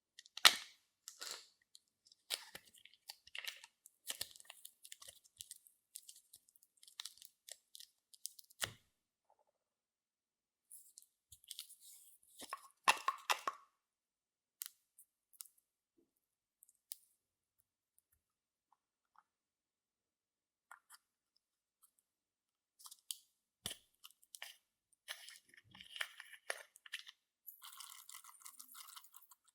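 Clear slime being worked by hand as makeup and glitter are mixed in: irregular bursts of sticky crackles, clicks and squishes, with a long pause about halfway through and a denser stretch of crackling near the end.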